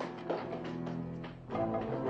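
Suspenseful background music score with low held string notes; a louder chord comes in about a second and a half in.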